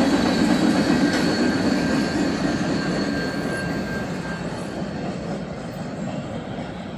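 Freight train cars rolling along the rails as the last car passes and moves away, the rumble fading steadily. A faint thin wheel squeal runs under it and fades out about two-thirds of the way through.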